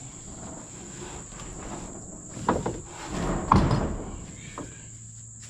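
A few sharp knocks and a scraping rush about halfway through, over a steady high-pitched drone of crickets or other insects.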